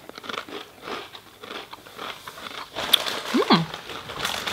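People biting and chewing crunchy Doritos corn chips, a run of sharp crackling crunches. A short hummed voice sound rises and falls near the end.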